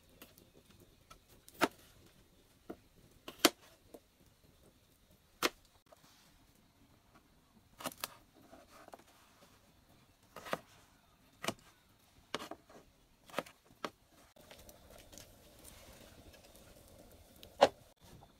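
Kitchen knife chopping through potatoes onto a plastic chopping board: sharp single knocks at irregular intervals of a second or two, with a two-knock pair near the end.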